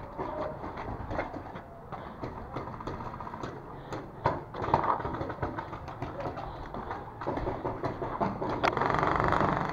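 Wind rumbling on a helmet camera's microphone, with scattered sharp pops of paintball markers firing across the field.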